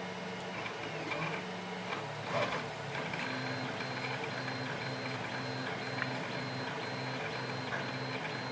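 3D printer stepper motors humming as the print head moves, the pitch shifting with each move and settling into a steady back-and-forth pattern of two alternating tones from about three seconds in. A brief clatter about two and a half seconds in.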